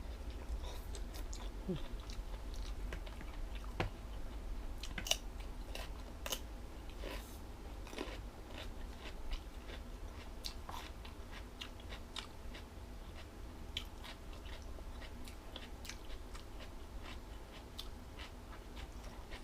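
Close-up chewing of crunchy jellyfish salad: irregular small crisp crunches and wet clicks of the mouth, over a steady low hum.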